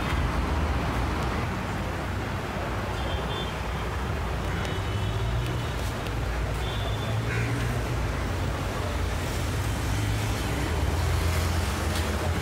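Steady low rumble of passing road traffic, with no single event standing out; a few faint short high tones come and go.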